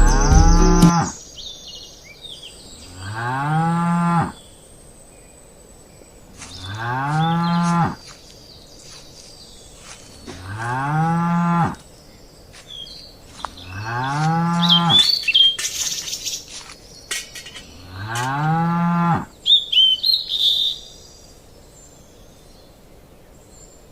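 A cow mooing five times at an even pace, about once every four seconds. Each moo rises in pitch and then holds for about a second. Faint bird chirps come between the moos.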